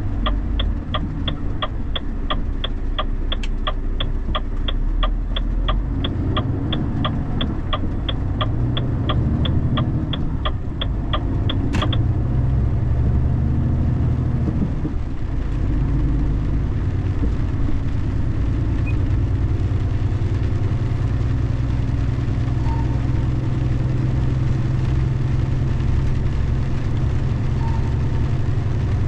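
Turn-signal indicator ticking inside a moving car, about three ticks a second, stopping about twelve seconds in. The car's engine and tyres give a steady low hum underneath.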